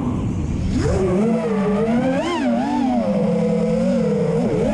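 Brushless motors and propellers of a Realacc Real5 5-inch FPV racing quadcopter whining in flight, heard from the onboard camera. The pitch sits low as the throttle is cut, then climbs back about a second in and wavers up and down with the throttle, dipping briefly near the end.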